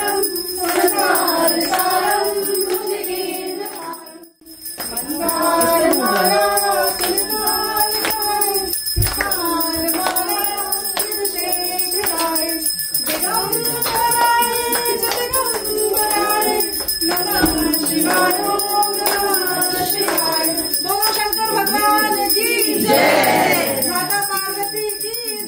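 Hindu devotional song: singing over music with a steady jingling beat. It drops away briefly about four seconds in.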